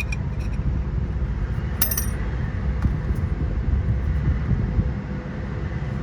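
A single light metallic clink with a short ringing tail about two seconds in, from small metal brake parts or tools being handled, over a steady low outdoor rumble.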